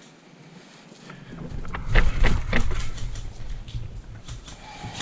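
Low rumbling and rustling on the microphone, typical of handling or movement noise, with a few sharp clicks close together about two seconds in; the rumble builds from about a second in and dies away near the end.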